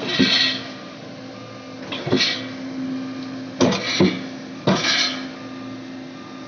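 Excavator diesel engine running steadily, with several sudden sharp knocks and squeals from the machine working as it is recovered from soft ground.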